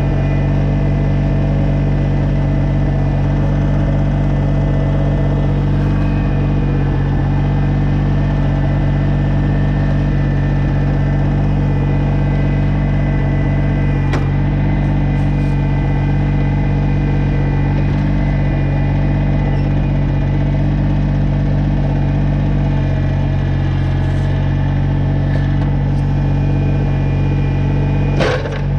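Kubota BX22 compact tractor's three-cylinder diesel engine running at a steady speed. There are a few faint clicks, and a short sharp knock comes near the end.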